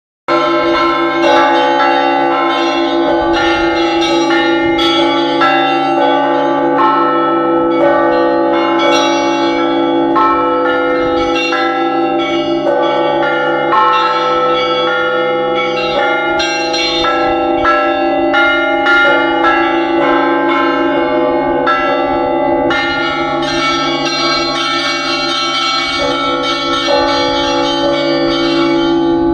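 Church bells rung by hand for Easter: low bells hum steadily while smaller bells are struck in a quick, dense pattern. The small bells grow busier and brighter near the end.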